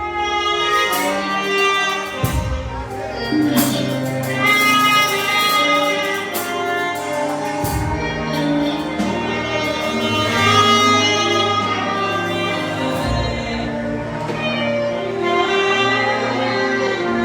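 Live worship music: a saxophone playing a sustained, slow melody over a band accompaniment with bass and percussion.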